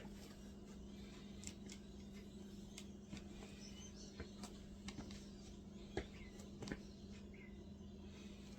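Quiet room tone with a steady low hum and scattered faint small clicks and ticks.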